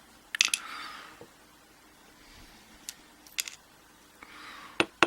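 Small metal clicks and light scraping as tools handle the pins and parts of a disassembled Mul-T-Lock euro cylinder: a tap about half a second in, two more in the middle, and a quick run of clicks near the end.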